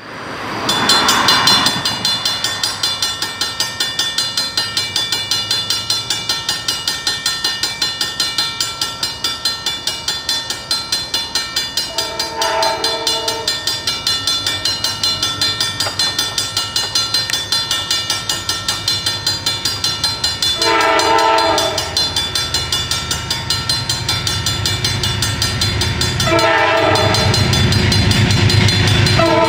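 Railroad crossing bells ringing in a fast steady pulse as the gates come down. An approaching Metro-North diesel passenger locomotive sounds its horn for the crossing, about 12 s in, again about 21 s in, and in a longer sounding near the end, as its engine rumble grows.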